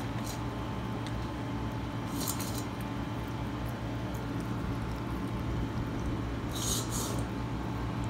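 18-week-old German shepherd puppy eating dry kibble from a stainless steel bowl: short bouts of crunching and clinking about two seconds in and again near seven seconds, over a steady low hum.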